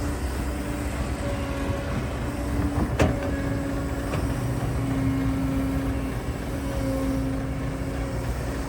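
Excavator's diesel engine running with a low rumble and a steady whine that breaks off and comes back, with one sharp knock about three seconds in.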